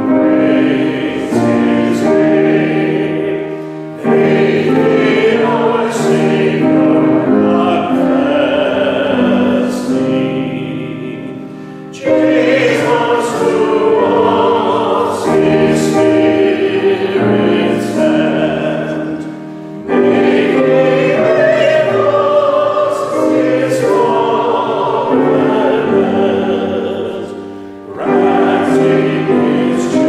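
A hymn sung by several voices, led by a man's voice, over sustained keyboard chords. It goes in lines with a short breath between them about every eight seconds.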